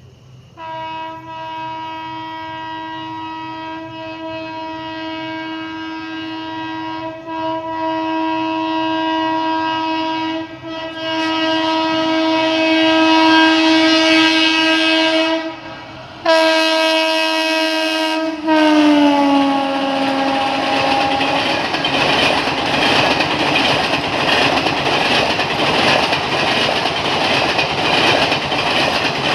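Indian Railways express train passing at speed: the locomotive's horn blows in one long blast, breaks briefly, then sounds again and drops sharply in pitch as the locomotive goes by. The coaches follow with a loud rush of wheels clattering over the track.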